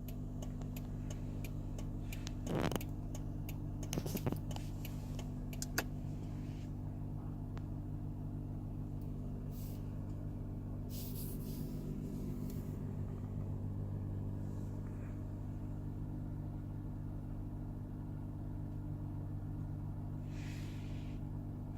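Toyota Mark X (GRX130) air-conditioning system making an abnormal droning hum, a steady 'buoon' of low stacked tones. It occurs with the air conditioning on, whatever the A/C compressor switch or recirculation/fresh-air setting, and its cause is unknown to the owner.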